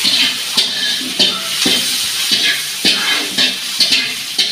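A flat metal spatula stirring and scraping sliced onions and tomato through sizzling oil in a large metal kadai, knocking against the pan about twice a second.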